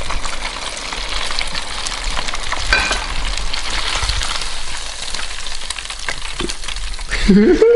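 Chicken drumsticks in batter sizzling and crackling steadily in the hot oil of an electric deep fryer, with the lid open.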